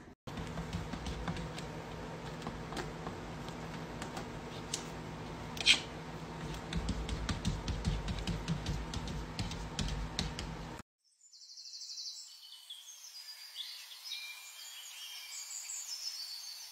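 A cat's paw tapping and scratching at a window pane: scattered light clicks over a steady low hum, with one louder tap about six seconds in. After a break about eleven seconds in come short, high bird chirps from a bird video playing on a television.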